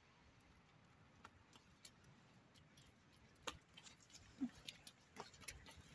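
Faint footsteps on cobblestones: scattered light clicks of shoes on stone, more frequent from about halfway in. A short low squeak a little past the middle is the loudest sound.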